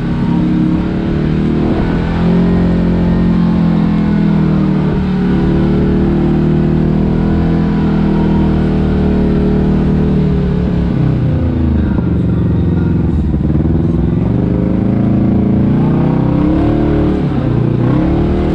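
Kawasaki KRX 1000 side-by-side's parallel-twin engine running while driving, holding a steady pitch, then dropping and climbing again as the throttle is eased and reapplied about two-thirds of the way through and again near the end. A low rumble of wind buffeting the microphone lies underneath.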